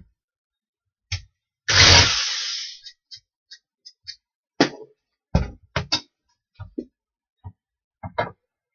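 Knocks and clatter of hand tools and wood being handled on a workbench, with one louder clatter about two seconds in and a run of short knocks later. A cordless drill is set down on the bench near the end.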